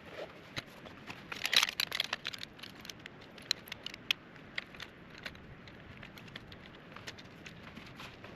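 A collapsible camp chair being unpacked and assembled, with fabric rustling and a dense run of clicks and rattles about a second in. After that come scattered single sharp clicks.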